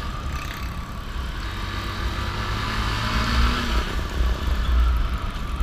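Motorcycle engine running while riding, heard from the rider's seat, under a steady rush of wind and road noise on the microphone. The engine note rises slightly around the middle.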